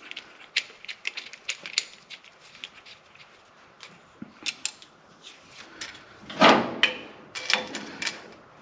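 Light clicks and clatter of A/C hoses and metal fittings being handled and positioned, with a louder rub about six and a half seconds in and another short run of clicks soon after.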